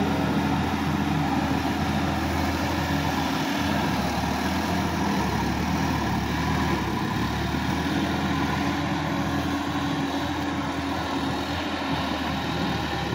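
Sonalika DI-50 RX tractor's diesel engine running steadily under load as it drags a rear implement through flooded paddy mud.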